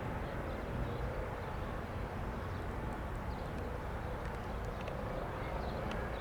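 Eurocopter EC135 twin-turbine helicopter running steadily, its rotor and turbine noise heavy at the low end, with a few faint ticks near the end.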